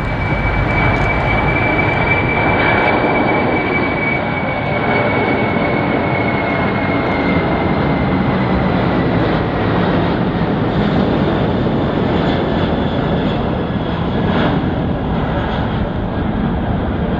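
Boeing 747-400 freighter's four jet engines at takeoff thrust as it lifts off and climbs out: a loud steady roar with a high engine whine that slowly falls in pitch.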